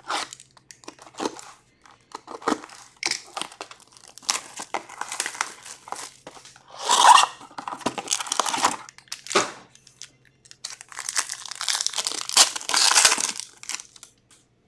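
Cardboard hobby box of 2021-22 Upper Deck Allure hockey cards being opened, then a foil card pack torn open, in irregular bursts of ripping and crinkling, loudest near the middle and again towards the end.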